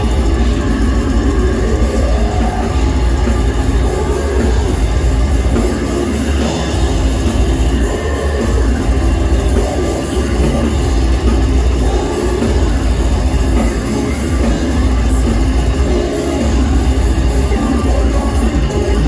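Live deathcore band playing at full volume: distorted guitars, bass guitar and dense drumming in one loud, unbroken wall of sound.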